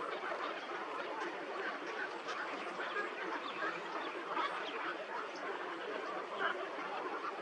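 Many birds calling at once in a dense, continuous chatter of short overlapping calls, with no pause.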